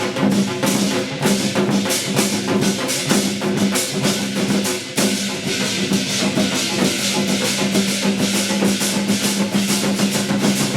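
Korean Hwanghae-do gut (shamanic ritual) music: fast, dense drumming and percussion strikes over a steady held low tone.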